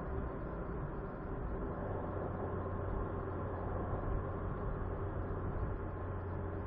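A car driving: a steady low engine hum and road rumble that holds evenly throughout.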